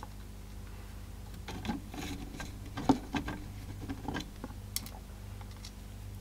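Small clicks, taps and scrapes of fingers handling the plastic tray and loader assembly of a Proton AX300 MKII CD player and its circuit board, with one sharper click about three seconds in and a brief scrape near the end, over a steady low hum.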